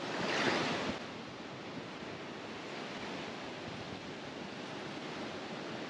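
Ocean surf breaking and washing up a sandy beach, a steady rush that is a little louder in the first second.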